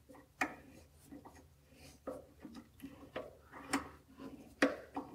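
Hand tap in a tap wrench being turned into a steel blank held in a lathe chuck, cutting an M6 thread: irregular sharp clicks, about six in all, as it cuts and breaks its chip. The tap is dull and worn.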